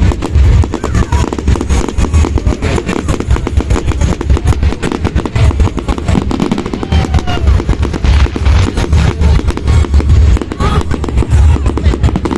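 Fireworks going off in a continuous rapid barrage of sharp bangs and crackles over deep low booms.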